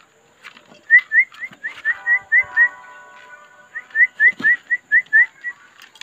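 Two quick runs of short rising whistled chirps, about eight in each run at four or five a second, with a pause between them. The chirps are clean, single-pitched and loud, like a person whistling to a pet bird.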